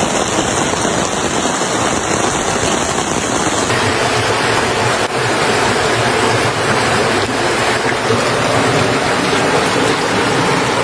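Loud, steady rush of water, with a sudden change in its character about four seconds in.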